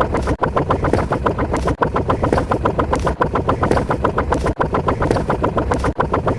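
A rapid, evenly repeated electronic sound effect, about eight short hits a second, briefly cutting out roughly every second and a half.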